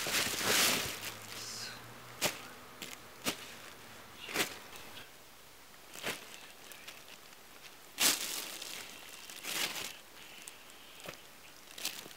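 Plastic carrier bag rustling and crinkling in short bursts, about one every second or two, as perch are dropped into it one at a time.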